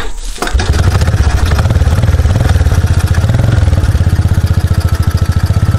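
Kawasaki four-wheeler engine catching on a pull of the recoil starter about half a second in, then running at a steady, evenly pulsing idle.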